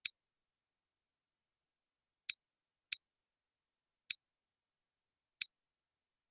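Five sharp computer mouse clicks at uneven spacing, two of them close together, with dead silence between.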